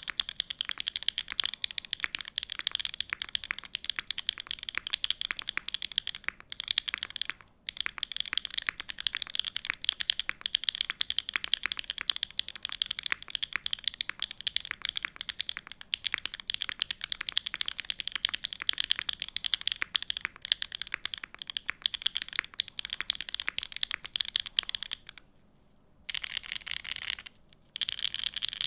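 Typing on a TGR 910 custom mechanical keyboard with lubed RAMA Ducks switches in an aluminium plate: a fast, dense run of key clacks that breaks off briefly a few times, once about seven seconds in and twice near the end.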